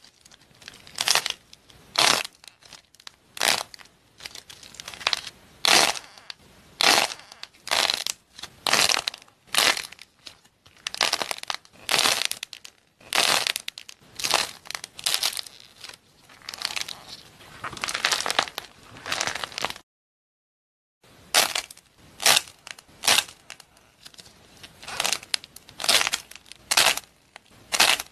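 Crunchy crackling and tearing as decorated doughnuts with foamy, crumbly fillings are squeezed and pulled apart by hand, about one squeeze a second. The sound breaks off into a second of silence about twenty seconds in, then the squeezing resumes.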